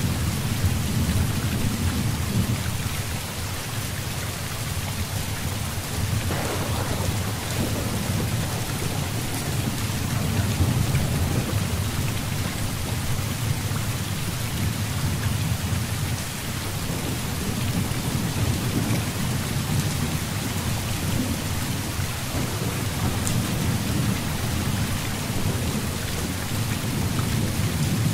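Heavy rain falling steadily, with low thunder rumbling underneath that swells and eases, and a sharper surge about six seconds in.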